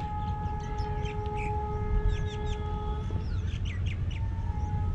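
Birds chirping: a quick scatter of short chirps. Underneath is a steady low rumble of wind on the microphone and a faint steady tone that stops about three seconds in.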